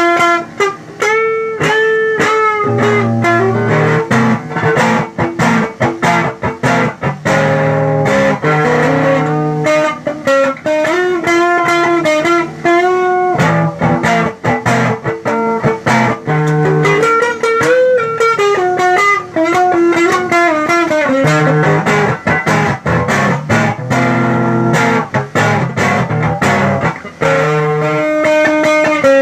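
Electric guitar music: a melody with bent, wavering notes over low sustained notes, with a quick clicking pulse underneath.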